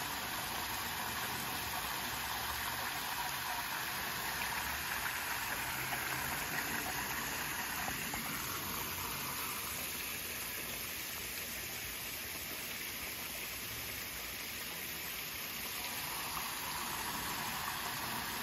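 Steady rush and splash of water from a koi pond's return jets spraying into the surface and a small waterfall spilling in.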